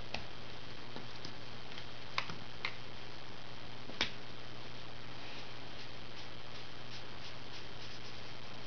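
Sharp plastic clicks of Crayola Super Tips markers being handled as colours are swapped: one click just after the start, two about two seconds in, and the loudest near four seconds. Fainter small ticks and scratches of felt tip on paper follow as colouring resumes.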